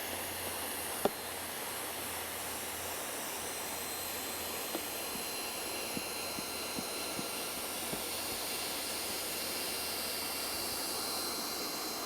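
Hand-held hot-air welder (roofing heat gun) blowing steadily as it welds a thermoplastic pipe-flashing seam: a constant hiss with a faint high whine, and a few light clicks.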